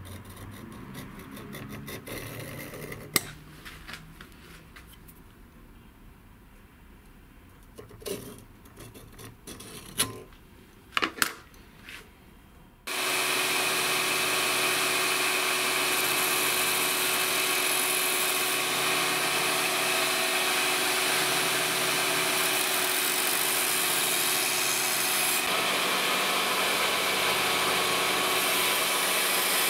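A few sharp clicks and knocks of metal handled at a bench vise. About 13 seconds in, a belt grinder's steady grinding noise sets in abruptly and runs on as the steel of a knife blank cut from an old saw blade is ground against the belt in a bevel jig.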